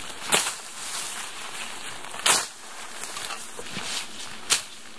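Sling blade swung through tall wet grass and weeds: three sharp cutting strokes about two seconds apart.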